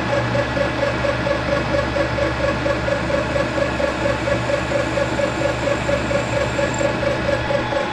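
Small geared-head metal lathe running under power and turning a test piece, its headstock gears giving a steady hum and a whine that pulses rapidly and evenly with the spindle; the gear noise is the kind the owner later tries to smooth by changing to another gear.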